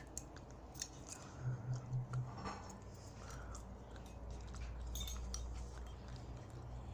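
Faint scraping and light clicks of a small spoon working glue-based slime in a bowl, as salt-water activator and baking soda are stirred in.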